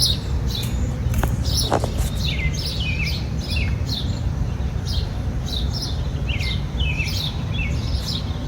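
Small birds chirping, with many short falling chirps repeating several times a second, over a steady low rumble.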